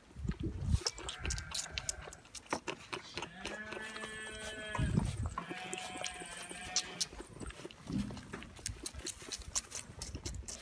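A goat kid sucking and slurping at a bottle teat, with wet clicks throughout. Another goat lets out two long bleats in the middle.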